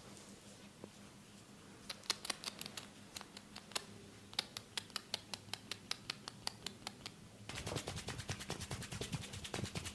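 Close-up clicking and tapping, irregular at first, then faster and denser from about seven and a half seconds in.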